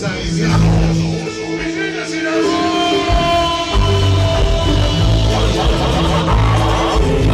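Recorded dance music played loud over a sonidero sound system, with a heavy bass line and a held melody line; the bass drops out about two seconds in and comes back near the middle.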